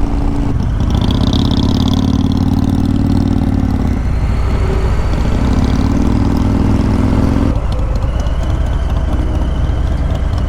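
Harley-Davidson Softail Slim's V-twin engine running at riding speed, pulling hard twice with a dip between them, with wind rush on the helmet microphone.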